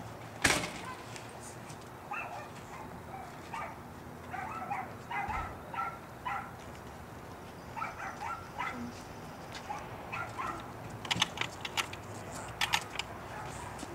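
A dog barking repeatedly in short separate barks. A single sharp bang about half a second in is the loudest sound, and a few sharp clicks come near the end.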